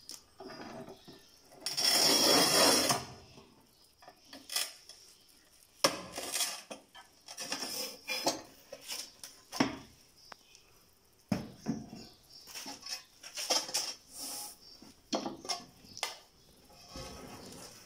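Manual rail tile cutter at work on a glazed tile: a scraping hiss lasting about a second, about two seconds in, as the scoring wheel is run across the tile, then scattered metallic clinks and knocks from the cutter's handle and rails and the tile being moved.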